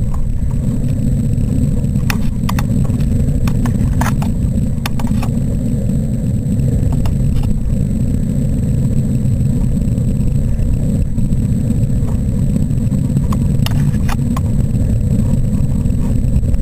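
Wind rushing over the microphone of a camera riding on a model rocket as it descends under its parachute: a loud, steady low rumble, with occasional sharp clicks.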